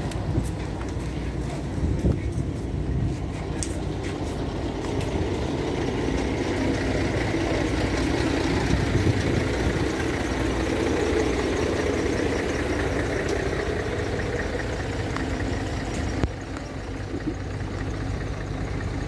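Street traffic: motor vehicle engines running steadily, swelling and easing as vehicles move past.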